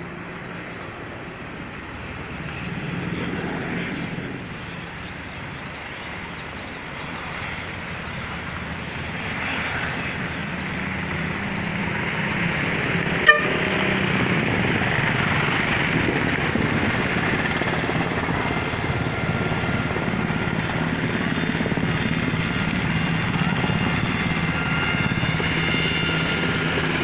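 Military helicopter's rotor and turbine engine running, growing steadily louder as it comes in to land. A single sharp click about halfway through.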